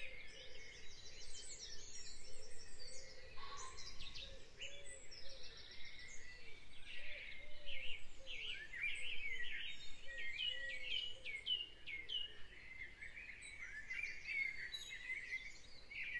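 Dawn chorus: many songbirds singing at once, a dense overlap of quick chirps and trills, with fainter lower arched notes underneath.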